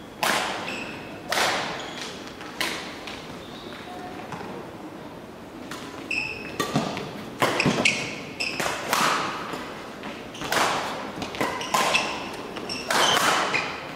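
Badminton rally: rackets striking a shuttlecock at irregular intervals of about a second, with short squeaks of court shoes on the hall floor; each strike echoes in the large hall.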